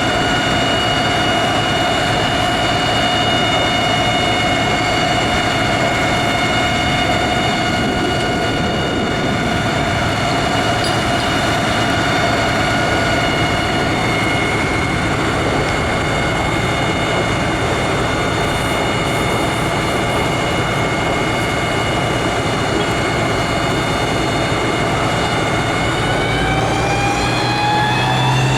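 Fire engine's engine and pump running hard and steady, a constant whine over a loud rushing noise; the pitch climbs near the end as it revs up.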